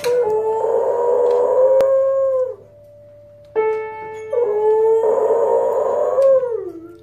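A beagle howling twice, two long howls that each drop in pitch as they end, while its paws strike chords on an upright piano, one at the start and one between the howls.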